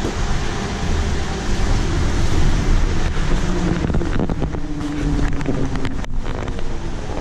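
Inside a 2016 Nova Bus LFSe battery-electric city bus on the move: steady road and tyre rumble through the cabin, with a few light rattles and knocks from the body.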